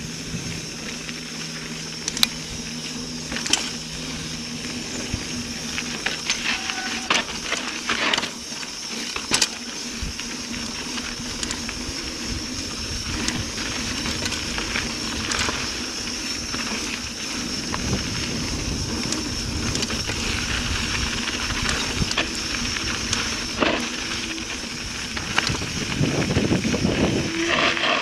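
Mountain bike rolling fast downhill on a dirt trail: a steady rush of tyre and wind noise, broken by sharp rattles and knocks from the bike over bumps, growing louder near the end.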